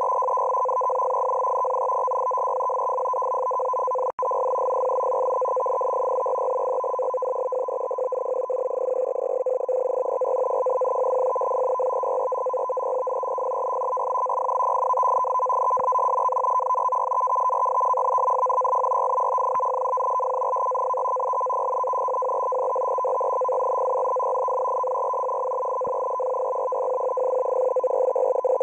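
Russian M42b digital signal received on shortwave through a WebSDR in CW mode: a steady, continuous data tone pitched in two bands, one low and one about an octave higher. It drops out for an instant about four seconds in.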